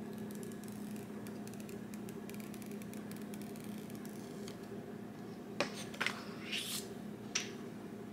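Paper protective wrap being peeled off a new iPhone 15 Pro Max: faint fine crackling, then a few sharper clicks and a brief rustle from the wrap and the phone being handled. A steady low hum runs underneath.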